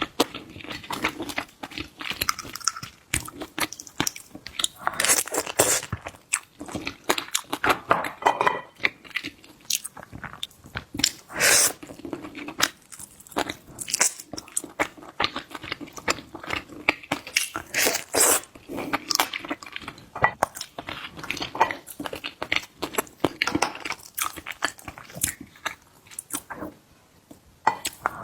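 Close-miked eating of seafood: steady chewing and biting with many short, irregular crunches and clicks.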